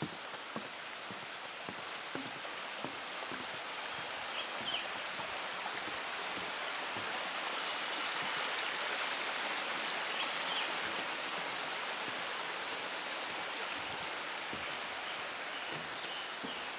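Steady rushing of running water, swelling to its loudest about halfway through and easing off again, with faint light knocks of footsteps on a wooden boardwalk beneath it.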